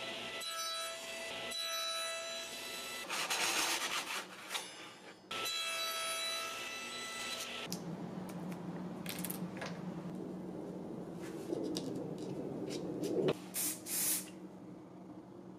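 Table saw running with a steady whine, its blade cutting a small piece of hardwood in two loud noisy passes. About eight seconds in it gives way to a low steady hum, with light clicks and rubbing of small wooden pieces and tape being handled, and a couple of louder scraping bursts near the end.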